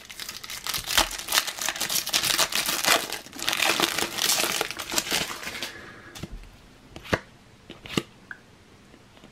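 Shiny foil wrapper of a Topps Cricket Attax trading card pack being torn open and crinkled for about six seconds, then a few light clicks as the cards are handled.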